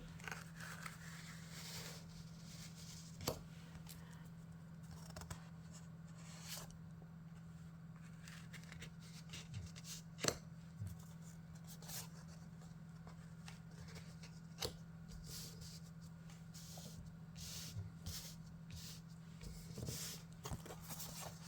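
Faint handling of printed art cards: scattered light taps, clicks and rustles as cards are picked up and turned over, over a steady low hum.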